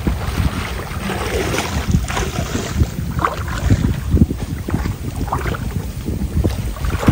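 Water sloshing and splashing irregularly as someone wades through thigh-deep floodwater, with wind rumbling on the microphone.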